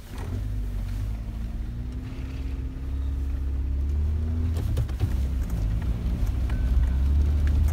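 A 4x4's engine running steadily under way on a rough dirt track, heard from inside the cab. The low engine drone grows louder about three seconds in. A few knocks from the vehicle come near the middle.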